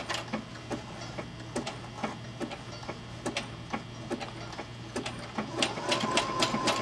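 Brother SE400 computerized sewing machine sewing a slow zigzag test stitch on a towel: a steady motor hum with the needle's regular clicking strokes. About five and a half seconds in, a higher whine joins and the clicks come faster and more evenly, about five a second.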